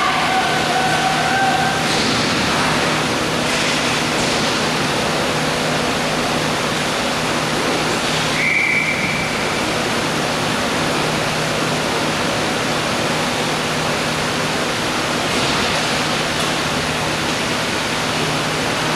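Steady rushing noise with a constant low hum, and a brief high tone about eight and a half seconds in.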